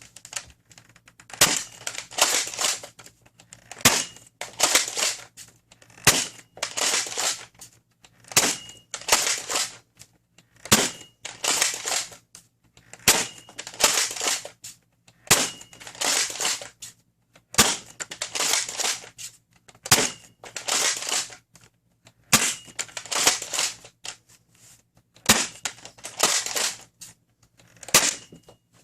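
Dart Zone MAX Stryker foam dart blaster being cycled and fired over and over, about a dozen shots roughly every two seconds, each a sharp snap with a longer rattling burst of handling noise. Several shots are followed by a short high beep, typical of a chronograph registering the dart.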